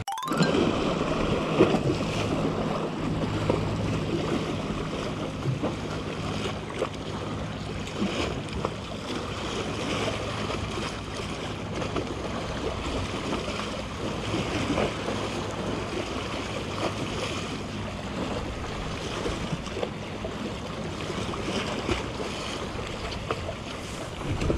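Sea waves washing against a concrete seawall and tetrapod blocks, with wind buffeting the microphone and a few small clicks of handling.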